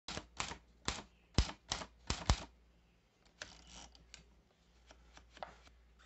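Typewriter keys striking the paper: about seven sharp strikes in the first two and a half seconds, then a softer rustle and a few lighter clicks.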